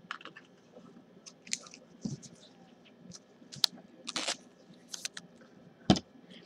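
Scattered light clicks and rustles of a trading card being handled and turned in the fingers, with a longer rustle a little past four seconds and a single louder knock near the end.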